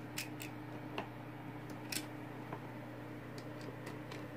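A screwdriver working the terminal screw of a plastic push-button doorbell switch, making a few faint clicks in the first two seconds. A steady low hum runs underneath.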